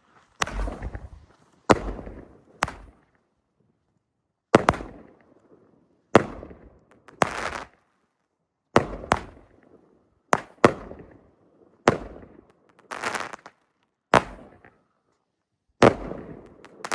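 Fireworks going off: about fourteen sharp bangs, unevenly spaced roughly a second apart, each trailing off briefly.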